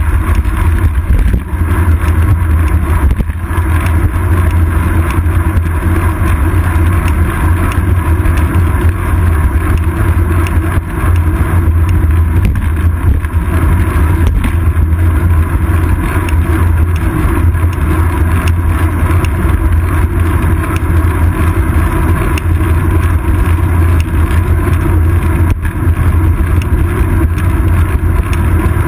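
Steady, loud low rumble of wind and road vibration picked up by a seat-post-mounted action camera on a bicycle rolling along asphalt.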